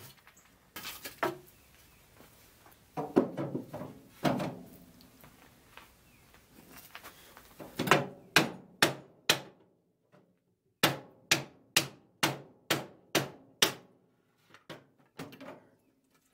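Sharp knocks on the Triumph Spitfire's fuel tank and fuel line fitting while a stuck fuel line is worked free. A few scattered knocks come first, then two runs of rapid strikes at nearly three a second, and lighter taps near the end.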